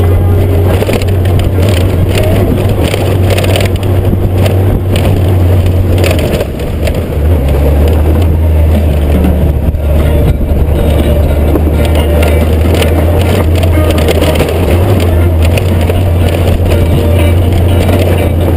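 Honda GoldWing GL1500's flat-six engine running with a steady low drone under way on a rough gravel track, mixed with wind and tyre noise on a helmet-side microphone. About six seconds in the engine eases off briefly, then picks up again.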